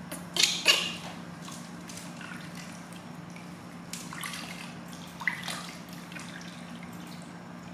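Water splashing and dripping in a stainless steel basin as hands wash a newborn baby monkey, with two sharp splashes under a second in and softer ones around four and five seconds in.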